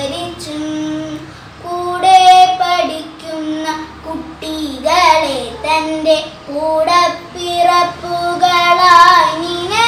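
A young girl singing a prayer solo and unaccompanied, in long held notes that step and slide between pitches, with short breaths between phrases.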